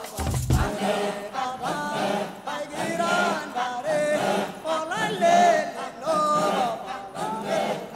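Closing theme music: voices singing a chant-like melody, with a low drum beat that drops out under a second in.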